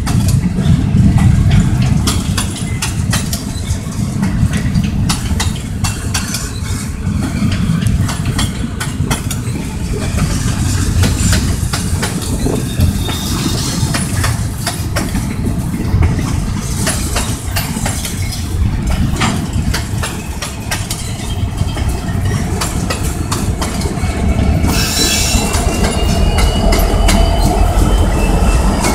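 Freight train of empty open-top cars rolling past close by: heavy rumble with steady clicking and clanking of wheels over the rails. About three-quarters of the way through it grows louder as the locomotives come up, with a faint high wheel squeal.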